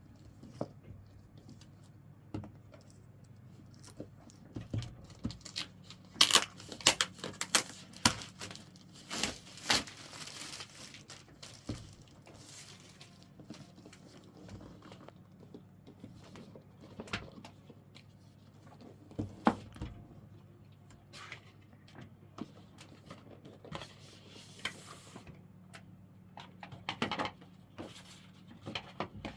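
Packaging being handled and opened: plastic and paper rustling and tearing, mixed with irregular knocks and clicks of cardboard and parts being set down. The busiest stretch is in the first third, with more rustling near the end.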